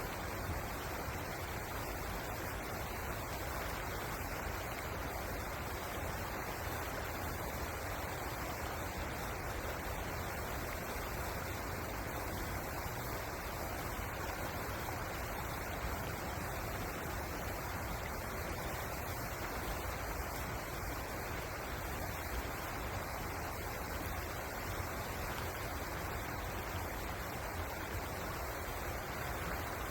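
River water flowing, a steady unbroken rushing with a low rumble beneath it.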